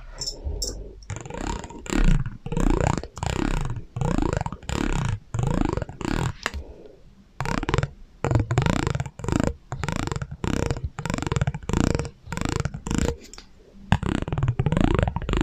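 ASMR trigger sounds put through an echo effect: a quick series of short sweeping, ringing tones, about two a second, with a short pause partway through.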